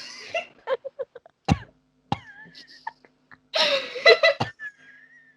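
A person coughing in the middle of a laughing fit: a sharp cough about a second and a half in and a longer harsh coughing burst near four seconds, with thin high squeaks of breathless laughter between.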